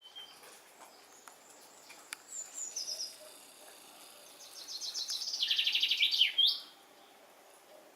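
A songbird singing: a few high, falling notes, then a rapid trill of repeated notes, about ten a second, that grows louder and ends in a quick sweep down and back up.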